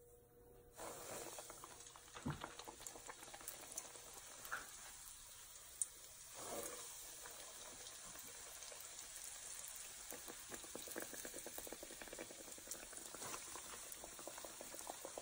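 Patongko dough sticks frying in hot oil: the oil starts sizzling suddenly about a second in as the stretched dough goes in, then keeps up a steady crackling sizzle with a few sharper pops.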